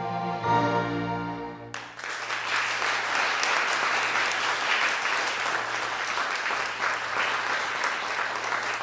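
A musical-theatre song ends on a held final chord about two seconds in, and the audience applauds steadily.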